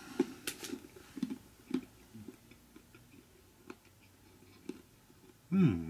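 A person chewing a bite of dark chocolate with almonds: soft, irregular crunches and mouth clicks, thickest in the first two seconds, then only occasional. Near the end comes a short voiced sound from the same person.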